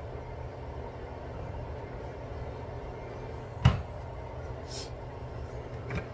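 Steady low hum in the background, with one sharp knock a little past the middle.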